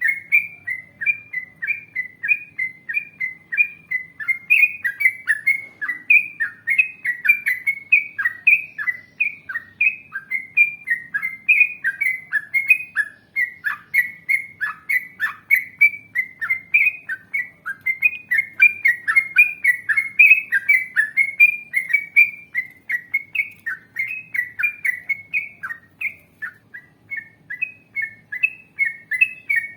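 Yellow-vented bulbul (trucukan) singing in a long unbroken run of quick, bubbly chirping phrases, about three a second, with a brief break a few seconds before the end.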